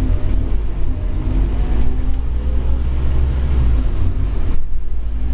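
Scania OmniCity N230UD double-decker bus heard from inside the lower deck: its diesel engine drones low and steady under way, with a faint rising whine in the first couple of seconds. The higher sound thins out briefly about four and a half seconds in.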